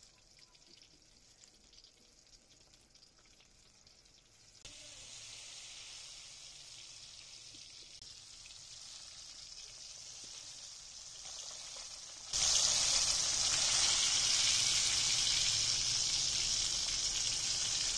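Besan-battered capsicum pakoras deep-frying in hot ghee in a karahi: a steady hissing sizzle, faint at first, growing louder about five seconds in and much louder from about twelve seconds in.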